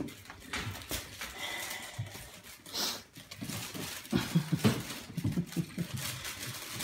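Border collie puppies playing on a plastic rocker toy: claws clicking and scrabbling on the plastic and the tile floor, with short low puppy growls about four seconds in.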